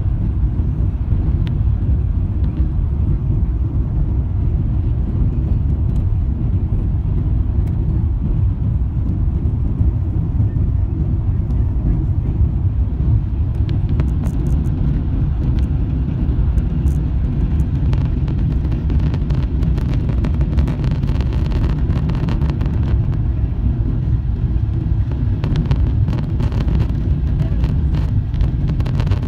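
Steady low rumble of an airliner's engines and rushing air, heard inside the passenger cabin during the climb after takeoff. Light crackles and clicks come in from about halfway through.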